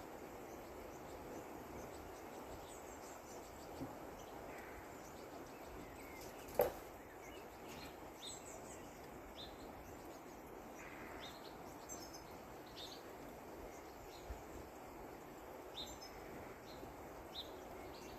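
Quiet outdoor ambience: a steady low hiss with short, high chirps every second or two. A single sharp click comes about six and a half seconds in.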